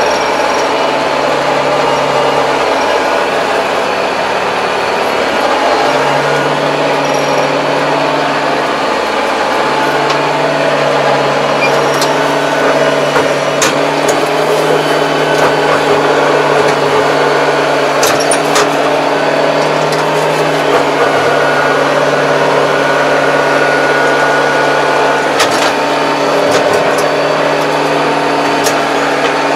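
Kubota 75 hp tractor's diesel engine running steadily under load, heard from inside the cab while it drives a rotary tiller through overgrown weeds. A few sharp clicks sound over the engine.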